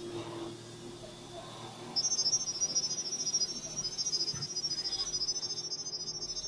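Smartphone speaker playing a rapid stream of high-pitched beeps that hop quickly between a few pitches, starting about two seconds in: the IP camera app's sound-wave pairing signal, sending the Wi-Fi password for the camera to pick up.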